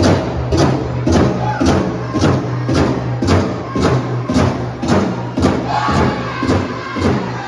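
Powwow drum group singing a women's fancy shawl contest song: chanting voices over a steady, even drumbeat of just under two beats a second.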